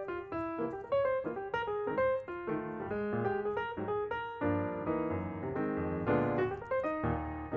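Background music: piano melody with chords.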